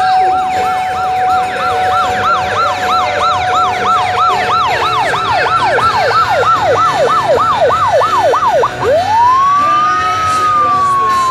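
Fire engine sirens: a fast electronic yelp sweeping up and down about three times a second, over a steady held tone that drops out about halfway. The yelp stops just before the end, and a single wail rises and then slowly falls.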